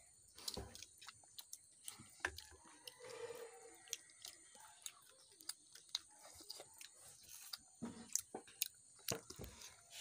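A child chewing and biting food close to the microphone: many irregular, sharp mouth clicks and chewing noises.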